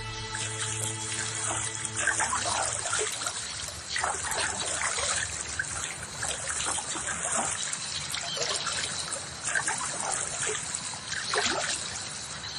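Wooden oars dipping and pulling through calm water, with water trickling and splashing off the blades, a stroke roughly every two seconds.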